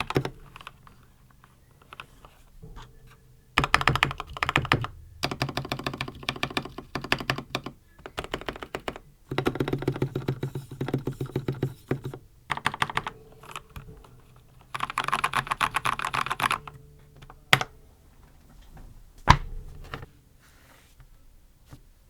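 Typing on a Red Dragon Kumara mechanical keyboard fitted with lubed red linear switches and PBT Dolch-style keycaps. It comes in several fast bursts of keystrokes with short pauses between them. A few single, heavier key presses follow near the end.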